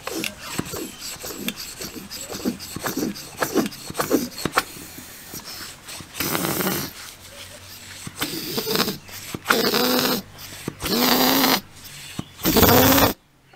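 Rusty steel foot tyre pump's piston and rod being worked by hand in the cylinder. First come scrapes and short squeaks, then five squealing, wheezing strokes of about a second each, the last the loudest, before it cuts off suddenly.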